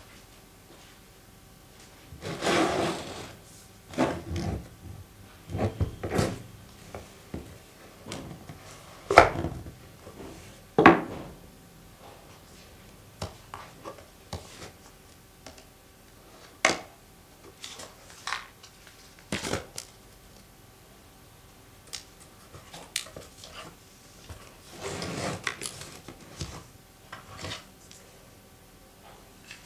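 Phone unboxing handling noises: a cardboard box and its packaging being slid, opened and set down, giving scattered sharp taps and knocks with a few longer rubbing, sliding sounds.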